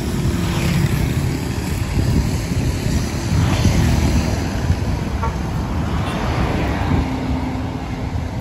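Road traffic on a city street: a steady low rumble of passing cars and motorcycles, swelling three times as vehicles go by.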